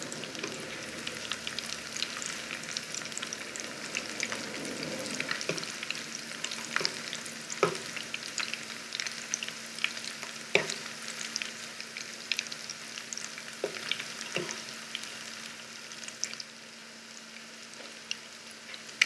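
Goat-meat kababs shallow-frying in hot oil in a nonstick pan, a steady sizzle full of fine crackles. A few sharp clicks come in the middle as the kababs are turned, and the sizzle drops quieter for the last few seconds.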